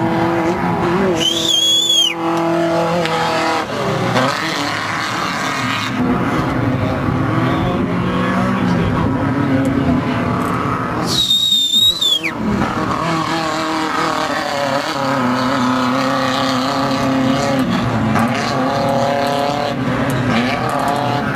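Off-road desert race buggy engines running hard, one vehicle after another, their pitch rising and falling as they rev and pass. Two brief high-pitched tones cut in, about ten seconds apart.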